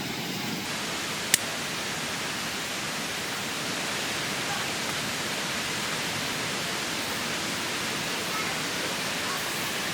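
Valley stream rushing steadily, with a single sharp click about a second and a half in.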